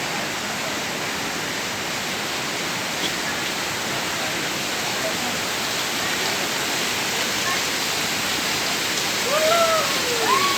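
Waterfall: falling water making a steady, even rush. A voice comes in briefly near the end.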